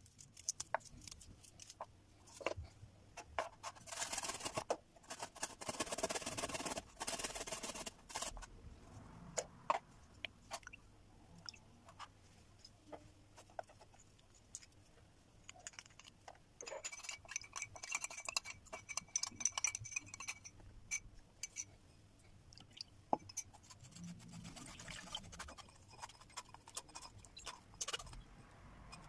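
Kitchen preparation sounds: scattered clicks and knocks of utensils and ingredients being handled, with a few seconds of dense crunching or scraping noise early on and a thin ringing tone later.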